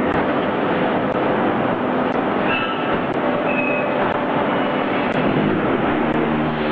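Concrete block-making machine and a forklift running together: a loud, steady, dense mechanical noise.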